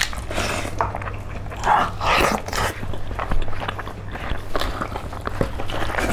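Close-miked wet chewing, sucking and smacking of two people eating chicken feet and rice by hand, in irregular bursts with small clicks, over a steady low hum.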